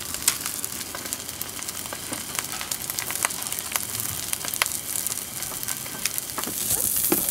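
Young milkweed pods sizzling face down in hot coconut oil in a stainless steel skillet, with frequent small pops and crackles. The sizzle grows a little louder near the end.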